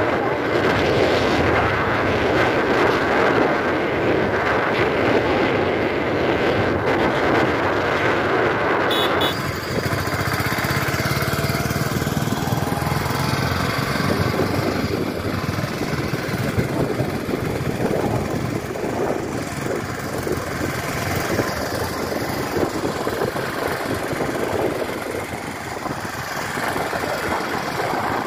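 Motorcycle running on the move, with wind rushing over the microphone; the sound changes abruptly about nine seconds in.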